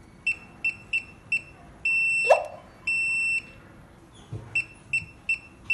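Wireless burglar alarm system's keypad and panel beeping: four quick short beeps, then two longer half-second beeps with a quick rising chirp a little past two seconds in, then four more quick short beeps.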